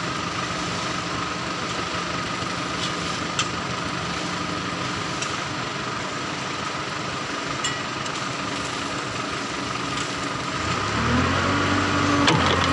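Tata tipper truck's diesel engine running while its raised bed tips out a load of red gravel, with a steady rushing hiss from the load sliding out. Near the end the engine note gets louder and steps up in pitch.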